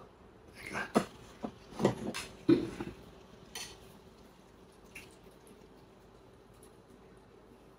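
Plates and utensils clinking and clattering during a meal: several sharp knocks in the first three seconds, a couple of faint clicks after, then quiet table noise.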